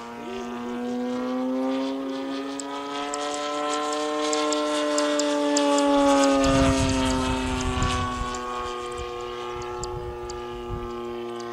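Radio-control model airplane's motor droning steadily as the plane flies past, its pitch rising slightly and then slowly falling. Low rumbling noise comes in from about six seconds in.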